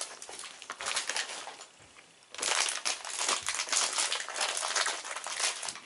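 Dense crinkling, crackling noise made of many small clicks, with a brief pause about two seconds in.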